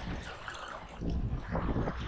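Wind buffeting the microphone over waves washing against jetty rocks, with a louder surge about a second in.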